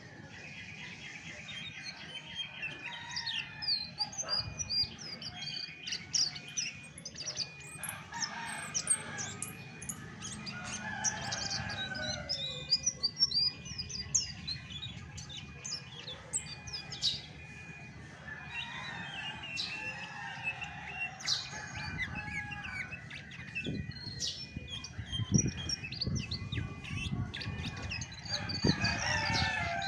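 Chestnut-backed thrush (anis macan) singing a long run of varied chirps and whistled phrases.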